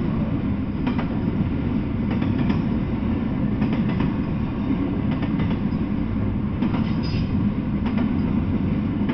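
Double-stack intermodal freight train rolling past: a steady rumble of wheels on rail, with pairs of clicks every second or so as the car trucks cross rail joints.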